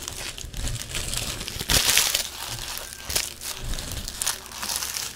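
Trading card pack wrapper crinkling irregularly in the hands as the cards are handled, loudest about two seconds in.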